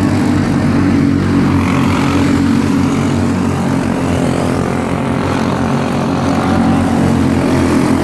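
Microstock race cars' engines running at speed as the cars lap an asphalt oval, a loud, steady drone of several engines together.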